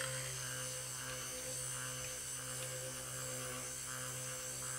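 Cuisinart immersion (stick) blender running at a steady pitch, its motor humming as it blends green cold-process soap batter toward trace.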